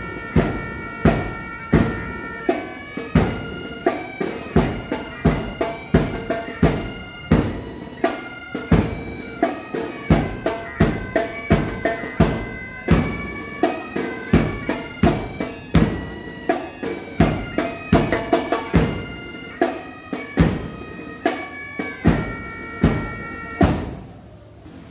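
Police pipe band playing: bagpipes sounding a tune over regular bass drum beats. The music stops near the end.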